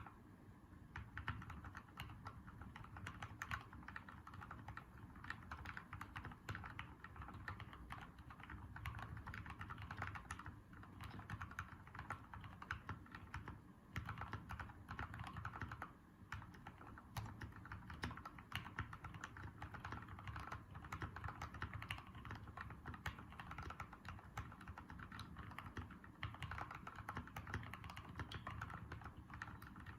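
Continuous fast typing on a custom mechanical keyboard with lubed Gateron Yellow linear switches on 35 g springs, MT3 keycaps and a stacked acrylic sandwich case. The keystrokes start about a second in and run on with only brief pauses.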